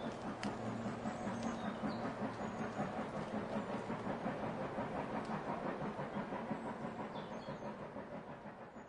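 Steam locomotive exhaust chuffing in steady, even beats, matched to the model locomotive, fading away over the last couple of seconds.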